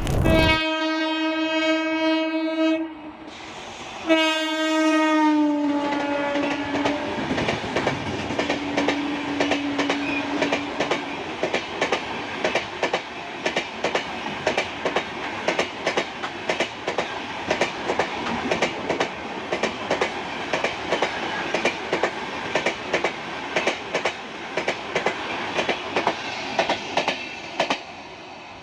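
Indian Railways express train sounding two long horn blasts, the second dropping in pitch as the train passes. Then the fast tadak-tadak clatter of coach wheels over the rail joints as the coaches rush by, stopping suddenly near the end.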